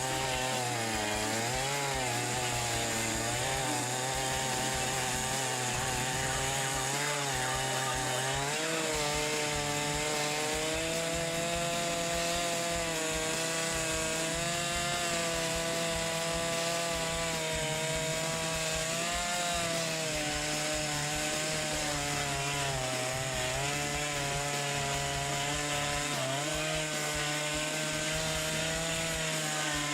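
Gasoline chainsaw on a chainsaw mill ripping a log lengthwise into boards. The engine runs steadily at high speed under load, its pitch wavering slightly as the cut goes.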